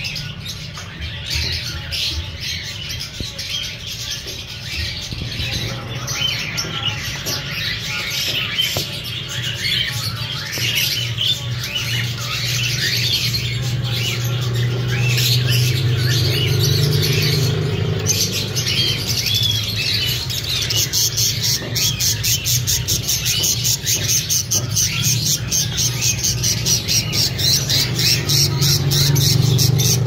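Green-cheeked conures chattering, with many short, high chirps and squawks. From about two-thirds of the way in the calls come in a fast, even run.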